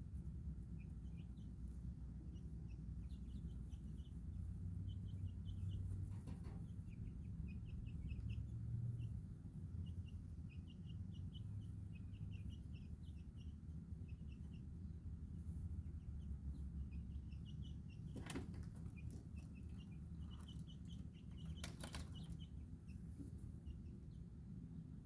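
Baby chicks peeping: many short, high chirps scattered throughout, over a steady low background rumble. Two sharp knocks sound, one about three-quarters of the way in and another a few seconds later.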